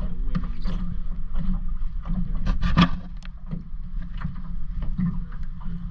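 Water sloshing and lapping around a half-submerged camera, with irregular knocks and clicks and a steady low hum underneath.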